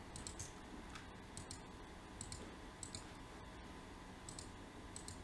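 Faint computer mouse clicks, a dozen or so light, irregular clicks over a quiet background hiss, as lines are picked one after another to trim.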